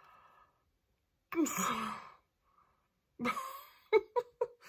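A woman sighs aloud twice, long breathy exhales with her voice in them, in speechless admiration of her eyeshadow. Near the end she makes three short, quick voiced sounds.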